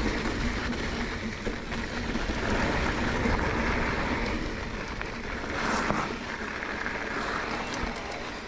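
Mountain bike rolling down a rough dirt trail: a steady rumble of tyres and wind on the microphone, with a brief louder rush about two-thirds of the way through.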